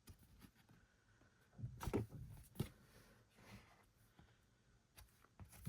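Quiet handling of postcards and album packaging: a few soft rustles and light taps about two seconds in and again near the end.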